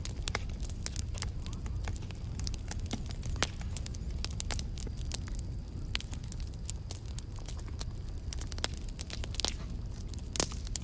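Wood campfire crackling, with scattered sharp pops and snaps at irregular intervals.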